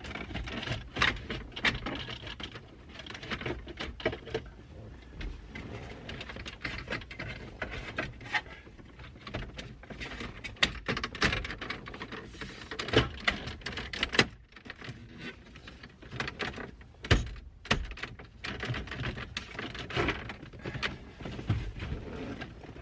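Irregular clicks, knocks and rustling of plastic dash trim as the radio housing is slid back into a truck's dashboard and fitted in place.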